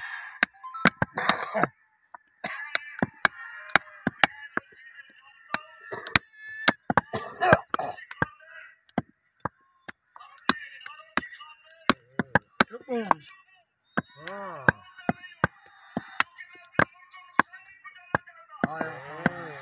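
Heavy meat cleaver chopping beef on a wooden tree-stump block: a long run of sharp chops at an irregular pace, often one or two a second.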